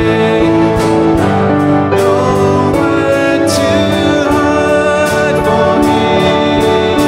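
Guitar playing a slow worship hymn tune, notes plucked at an even pace over held tones.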